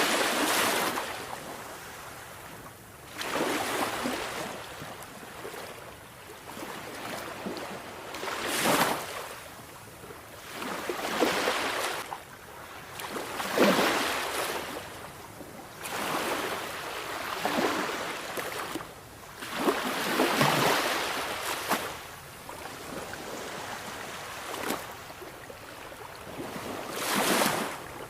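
Sea waves breaking and washing ashore: a rushing surge of surf every two to four seconds, each swelling and then fading back.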